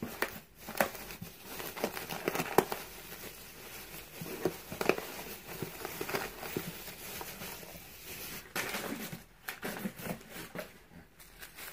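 Bubble wrap crinkling and rustling as bubble-wrapped packages are handled and lifted out of a cardboard box, with irregular small crackles throughout.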